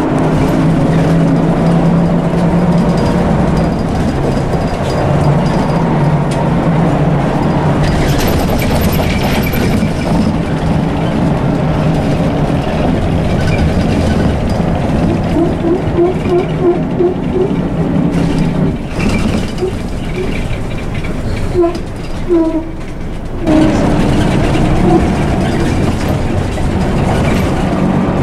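Cabin noise of an Ikarus EAG E94 bus with its Scania diesel engine running: a steady engine drone under rattling interior noise. There is a brief hiss about eight seconds in and a run of short squeaks from about fifteen seconds. The engine sound drops away briefly twice, around nineteen and twenty-two seconds, then picks up again.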